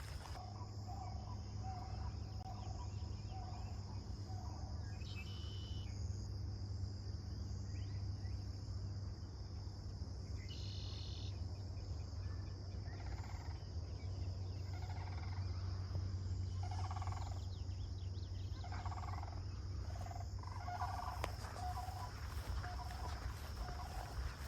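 Steady high insect drone with birds calling over it: a series of short, evenly repeated low notes at the start and again near the end, and a few brief higher chirps.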